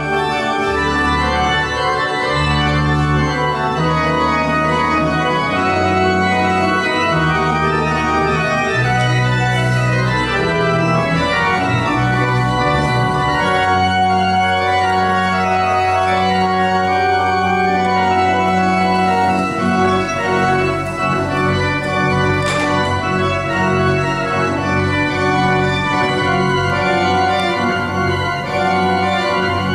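Church pipe organ playing sustained chords over low pedal notes. The bass notes change every second or so at first, then are held longer from about halfway through.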